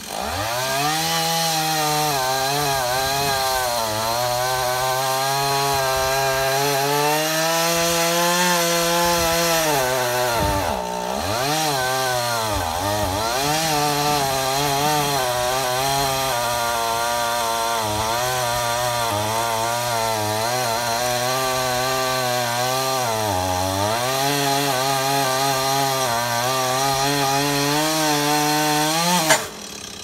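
Chainsaw running at high speed while cutting into a tree trunk, its pitch wavering and sagging twice under load. The sound falls away suddenly near the end.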